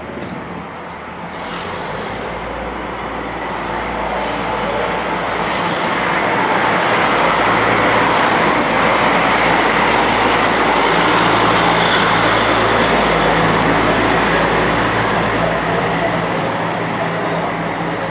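Sperry Rail Service rail-flaw detector car #128, a self-propelled diesel rail car, running past on the track. Its engine drone and wheel-on-rail rumble build as it approaches, are loudest about halfway through, and ease off as it moves away.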